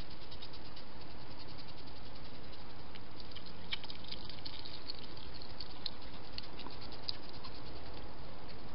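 Hedgehog moving about and foraging on hard ground: a scatter of small clicks and rustles, most of them between about three and seven seconds in, over a steady hiss.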